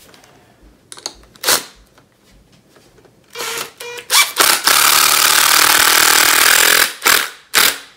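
Makita cordless drill driving a wood screw into a pre-drilled oak block. A few short starts, then a steady run of about two seconds, then two brief bursts near the end that seat the screw flush. A few light knocks from handling the wood come first.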